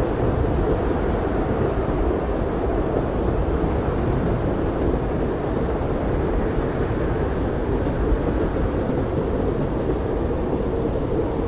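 Blizzard wind blowing steadily, a deep, muffled rushing with little high end and no single gust or knock standing out.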